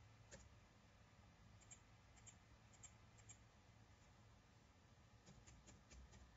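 Near silence with faint, scattered clicks of a computer keyboard and mouse while numbers are typed into a spreadsheet.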